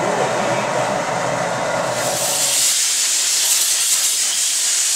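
A steady machine noise for the first couple of seconds, then a loud, high hiss of compressed air escaping. The hiss is typical of venting the cylinders of a large diesel engine before starting it.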